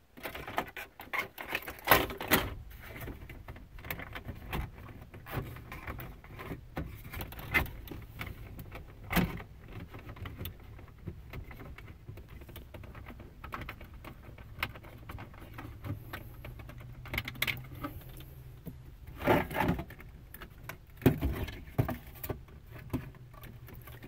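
Irregular clicks, rattles and knocks of hand work on a car's plastic center console: a T20 Torx driver working the console screws and loose trim and parts being handled, with a few louder clatters along the way.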